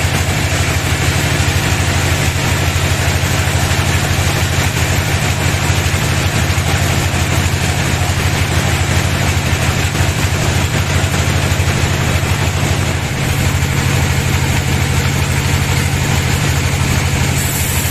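Band sawmill running steadily: a loud, constant engine-like hum with a rushing noise over it.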